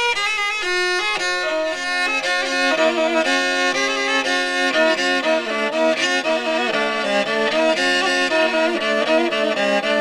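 Instrumental background music led by a violin, playing a melody of stepping notes over a sustained accompaniment.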